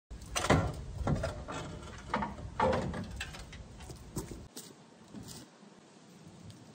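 Steel front bumper of a Toyota Land Cruiser 60-series clanking and rattling as it is worked loose and lifted off its mounts: several sharp metal knocks with brief ringing in the first three seconds, then smaller knocks, going quieter near the end.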